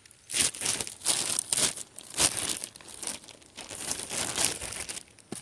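Plastic bread bag crinkling and rustling in an irregular run as it is opened and slices of bread are pulled out.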